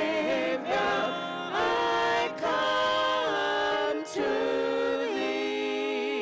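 Three women singing a gospel hymn unaccompanied in close harmony, holding notes and moving together from phrase to phrase with short breaths between.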